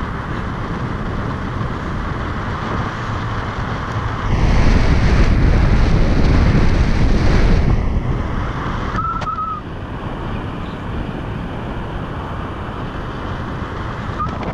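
Wind rushing over the microphone during a tandem paraglider flight, with a stronger gust from about four to eight seconds in.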